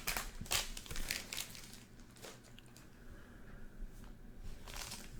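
Trading cards and a plastic card-pack wrapper being handled, rustling and crinkling in short bursts, most in the first second and a half.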